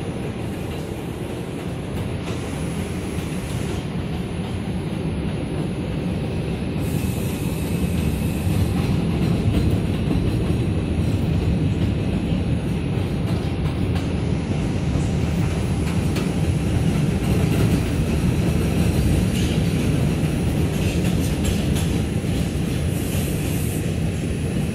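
New York City subway train running on the rails, heard from inside the car: a continuous rumble of wheels on track that grows louder about seven seconds in, with a faint high whine and scattered clicks over it.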